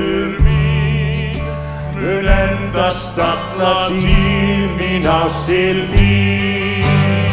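Live band playing a slow song: acoustic guitar, drums and held low bass notes under sung vocals.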